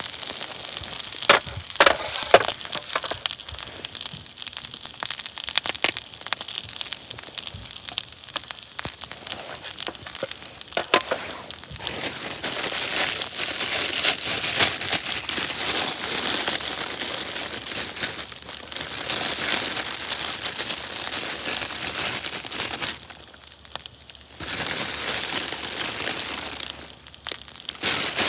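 Campfire crackling, with many sharp pops and snaps over a hissing rustle; it drops away abruptly twice near the end.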